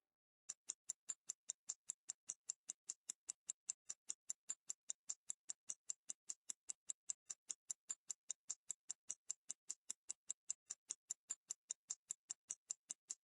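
Mechanical wristwatch movement of a Hublot Classic Fusion ticking steadily: a fast, perfectly even run of sharp ticks that starts about half a second in, close-miked.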